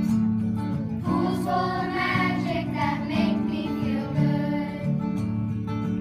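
Acoustic guitar strummed in a steady rhythm, with sung voices joining about a second in for a couple of seconds.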